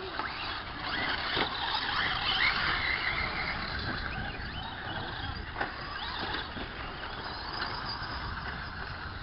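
Radio-controlled short-course race trucks running on a dirt track, their motors whining higher and lower as they speed up and slow down, with a few sharp clicks and knocks.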